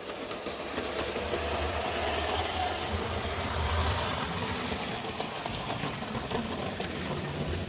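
Lima 0-4-0 model locomotive running along the track, its small electric motor on a newly fitted set of brushes whirring, with occasional faint clicks of the wheels over rail joints. The running sound swells a little about halfway through.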